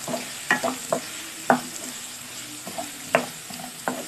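Wooden spatula scraping and knocking against a nonstick kadai in irregular strokes as chopped onions are stirred in hot oil, with a faint sizzle of the onions frying underneath.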